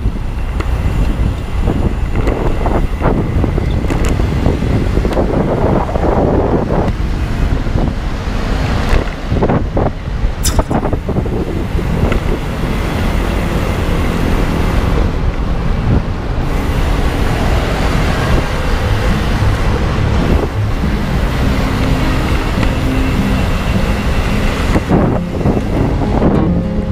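Steady road traffic noise with wind buffeting the microphone, and a sharp click about ten seconds in.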